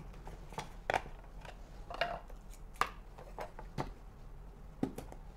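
Scattered light clicks and knocks, about eight over a few seconds, from a plastic food-storage container's lid and a small metal spoon being handled and set down on a kitchen countertop.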